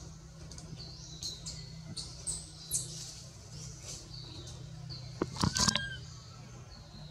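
Short, high-pitched chirping calls repeating every half second or so, with a louder cluster of calls and a short whistle a little over five seconds in.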